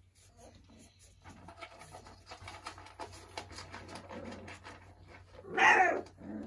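Four-week-old Doberman puppies shuffling and squeaking softly in their pen, with many small light ticks. About five and a half seconds in, one puppy gives a loud yelp that falls in pitch.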